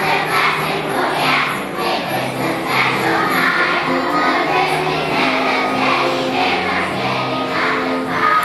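A large choir of kindergarten and first-grade children singing together over a recorded electronic accompaniment track.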